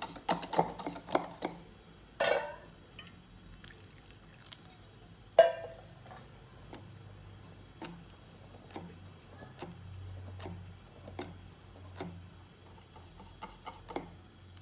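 Wire whisk beating thick batter in a bowl, with irregular clicks of the whisk against the bowl about once or twice a second and two louder knocks, about two and five seconds in.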